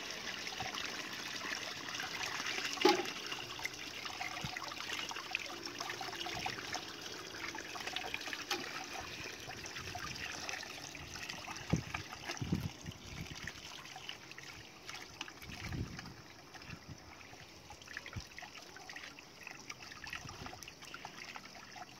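Water from an outdoor tap running and splashing into a pot as raw rabbit meat is rinsed by hand in it, with a sharp knock about three seconds in.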